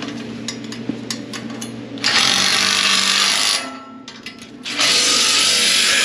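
A power tool run in two bursts, each about a second and a half, during repair work on a combine's corn head, over a steady engine hum. A few light metallic clicks come before the bursts.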